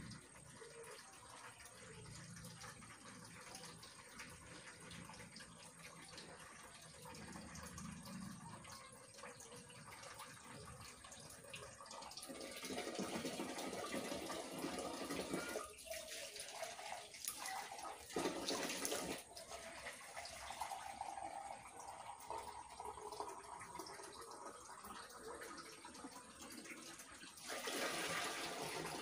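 Water running from a tap into a bucket, a steady rush that grows louder for a few seconds near the middle and again near the end.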